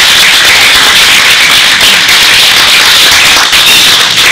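Audience applauding loudly, a dense, steady clatter of many hands clapping.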